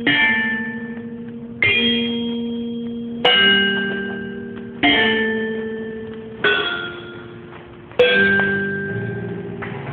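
Marching band front-ensemble bells playing a slow sequence of struck chords, a new one about every second and a half, each ringing on and fading, with the pitches shifting from chord to chord.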